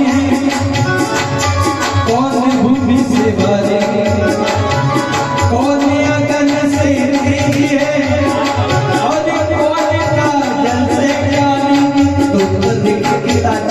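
Bhajan music: devotional singing over tabla drumming and sustained held notes, with a steady rhythm of sharp strokes throughout.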